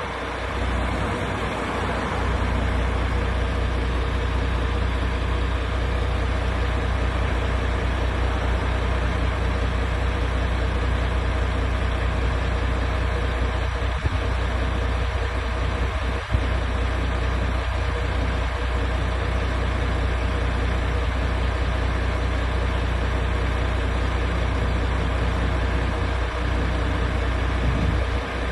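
MAN TGX 18.500 truck's straight-six diesel engine idling steadily, with a brief click about 16 seconds in.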